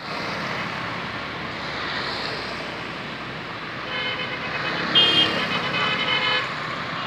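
Street traffic with motorbikes and a car passing. About four seconds in, a vehicle horn sounds for a couple of seconds, louder near the middle of that stretch.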